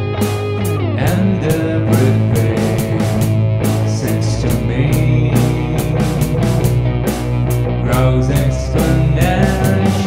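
Rock band music: electric guitar playing sliding, bending lines over bass and a steady drum beat.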